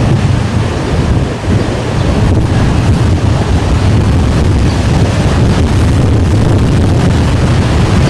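Storm wind buffeting the microphone of an outdoor camera: a loud, steady low rumble with rushing noise, barely easing about a second and a half in.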